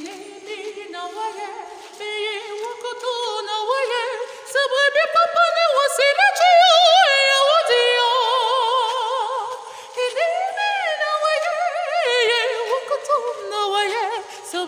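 A male lead voice singing a cappella with wide vibrato, holding long notes. It grows louder about four seconds in and dips briefly before picking up again.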